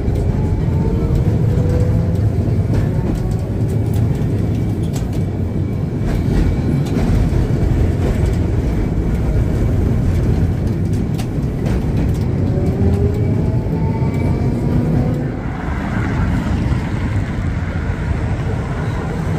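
ATM Class 1500 heritage tram running along the rails with a steady low rumble. Scattered clicks and a faint whine that glides up and down in pitch now and then come through it.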